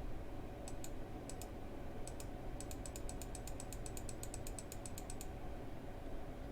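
Computer keyboard keys pressed: a few separate taps, then a quick even run of about six taps a second for two and a half seconds, as the backspace key is pressed over and over.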